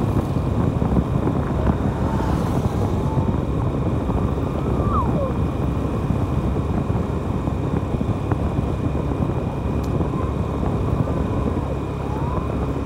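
Motorcycle running at a steady cruising speed, heard from on board: a continuous low drone of engine and rushing air that stays even throughout.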